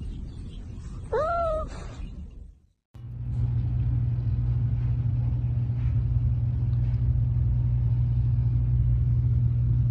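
A cat meows once, a short rising-and-falling call, about a second in. After a brief break there is a steady low rumble, a cat purring close to the microphone.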